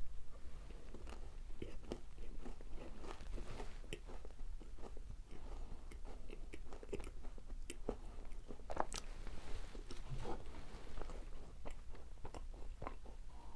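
Close-miked chewing of macarons: the crisp shells crunch and crackle in many quick, irregular bites and chews.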